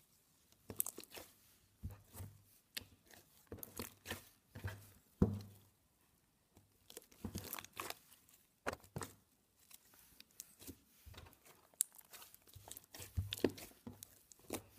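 Slime being stretched, squeezed and poked by hand: irregular sticky clicks, pops and crackles, with a short pause a little before the middle.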